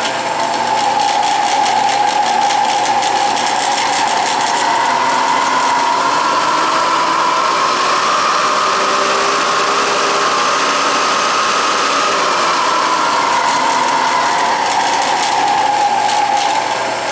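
Rockwell Delta 15-inch variable-speed drill press running with its belt guard off, its V-belt and variable-pitch pulley drive whining. The whine rises in pitch as the speed crank is turned up from the lowest speed, then falls back near the end as the speed is brought down again.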